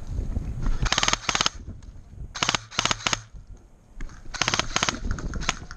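Airsoft rifle firing several short full-auto bursts, each a quick rattle of shots, the first about a second in.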